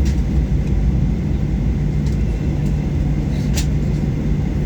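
Cabin noise of a Boeing 737-800 rolling on the ground just after landing: a steady low rumble from the engines and wheels, with a faint steady hum and a few short knocks or rattles about 2 and 3.5 seconds in.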